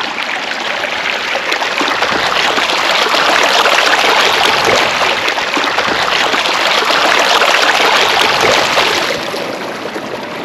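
Water of the Belaya River rushing steadily, growing louder about two seconds in and easing off again near the end.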